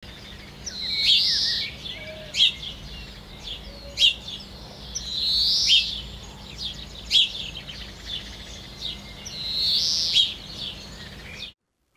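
Birds chirping and calling, with sharp short chirps and three longer swelling calls about four seconds apart. The sound cuts off abruptly near the end.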